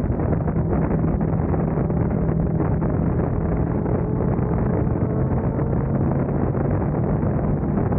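Sport motorcycle engine running at a steady cruise, a constant low hum, with wind rushing over the camera microphone.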